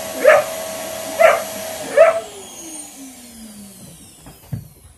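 A German Shepherd x Belgian Malinois puppy barks three times, about a second apart, at a running vacuum cleaner. The vacuum is then switched off and its motor whine falls away as it spins down, with a thump near the end.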